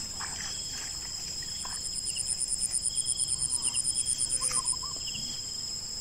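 Insects in the field trilling: two steady high-pitched drones throughout, joined about one and a half seconds in by a faster pulsing chirp of about eight pulses a second, which stops a little before the end.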